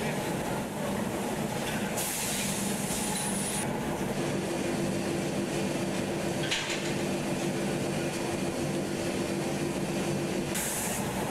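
Steady industrial drone of glassworks machinery with a low hum. Bursts of hissing come about two seconds in and again near the end, with a brief sharp sound in the middle.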